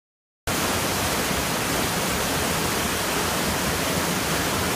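A small stream cascading over rocks: a steady, even rush of water that starts abruptly about half a second in.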